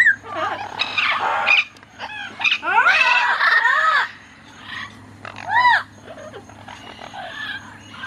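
Amazon parrots calling: a run of squawks and arching, up-and-down whistled calls, busiest about three seconds in, with a strong arched call a little past halfway, then quieter chatter.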